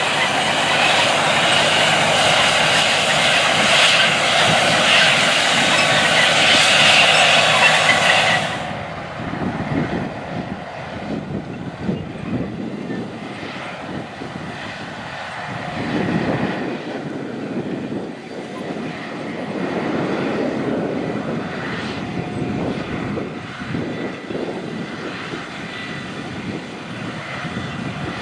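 Big farm machines working in a field, their engines running steadily. The sound changes abruptly about eight seconds in to a quieter, lower, rising-and-falling engine sound.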